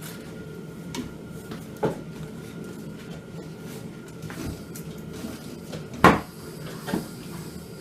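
A few separate metal knocks and clanks from working a quad tire bead on a manual bead breaker, the loudest about six seconds in.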